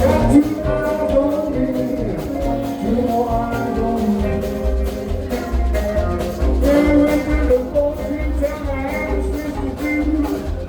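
Live blues band playing, with a steady drum beat and bass under the melody lines.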